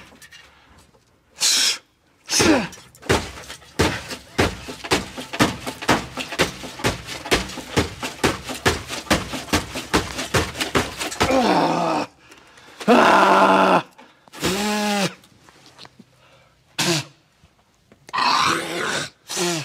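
Rusted exhaust being worked loose under a car: a fast run of knocks, about three or four a second, for some eight seconds, then several loud strained grunts and groans from the man doing the work.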